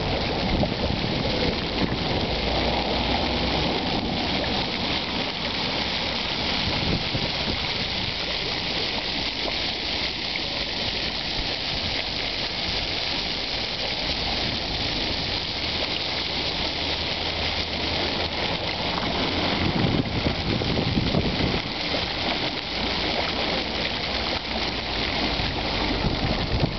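Fountain water splashing and trickling into a shallow stone-edged pool, a steady hiss. Wind rumbles on the microphone at times, most strongly about two-thirds of the way through.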